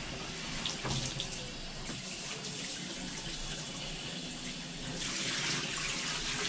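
Water running into a bathtub as a small dog is rinsed, a steady rush that grows louder about five seconds in.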